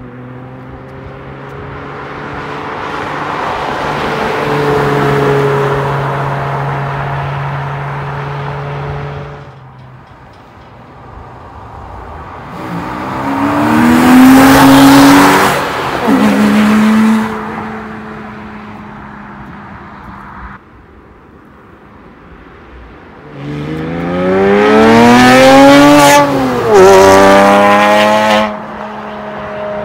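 Porsche 997.1 Carrera S flat-six through a Soul Performance valved sports exhaust, driving past three times. First, with the valves closed, a quieter pass that swells and fades. Then two much louder passes, the first with the valves open, the engine note climbing as the car accelerates by; the last one drops in pitch as it passes.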